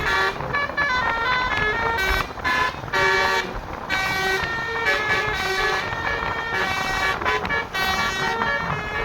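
Basuri telolet bus horn, a multi-tone air horn, playing a fast melody of short pitched notes that change several times a second.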